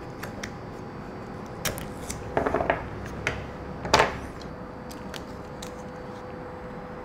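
Hands working with masking tape and wood on a worktable: a few light clicks and taps, a short scratchy rustle of tape about two and a half seconds in, and one sharp knock on the table about four seconds in.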